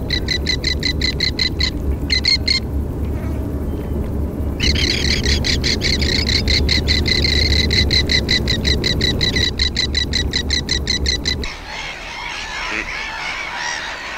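A bird calling a long, rapid series of short high piping notes, about eight a second, with a two-second break partway through, over a steady low rumble. The notes and rumble stop near the end, leaving a quieter, irregular bird chatter.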